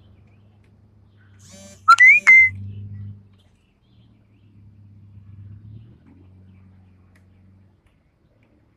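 Two loud, short whistled chirps about two seconds in, each gliding up in pitch and then holding, over a faint low hum.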